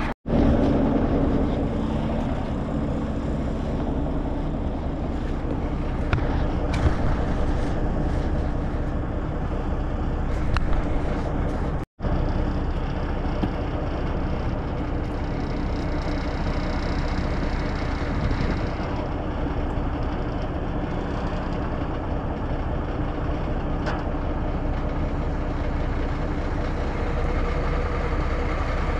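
1964 Kenworth self-loading log truck's engine running steadily, a constant low drone with a few faint clicks and knocks over it.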